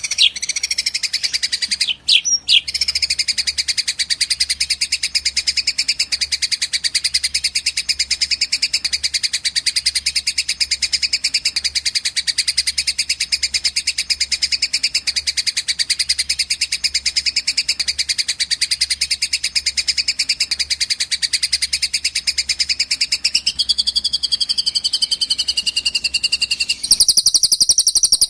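Recorded songbird calls from a masteran track of a fighting Eurasian tree sparrow and a cililin: a dense, very rapid run of high chirps with a brief break early on. Near the end it switches to a different, higher chirping.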